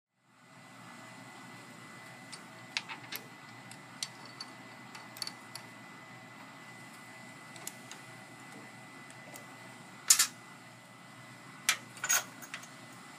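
Metal clicks and knocks of a drill press chuck being handled and tightened around the mandrel of an abrasive disc, a few light ones and then two louder clusters near the end, over a steady background hum.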